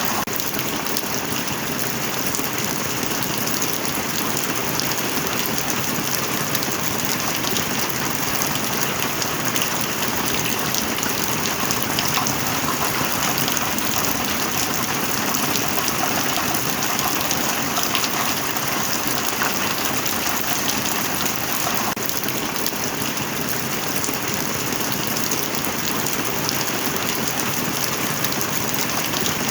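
Steady heavy rain: an even hiss of falling water, thick with the small ticks of individual drops landing close by.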